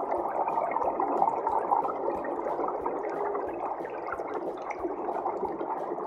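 Underwater water ambience: a steady wash of rushing, bubbly water noise.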